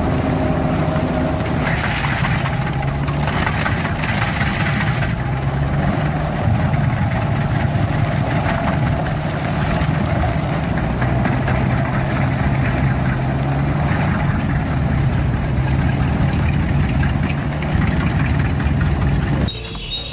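RT400 stump grinder's engine running steadily under load as its cutting wheel tears into a stump, with surges of grinding noise a couple of seconds in. The sound drops off abruptly just before the end.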